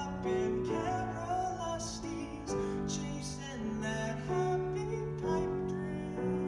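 Live music: piano chords held and changing every second or two, with a wavering sung note over them at times.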